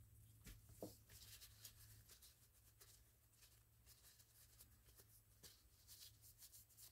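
Near silence: faint room hum with a few soft ticks and rustles of handling, one slightly louder tick just under a second in.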